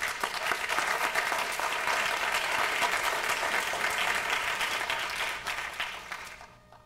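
Audience applauding: dense clapping from many hands that tapers off and stops near the end.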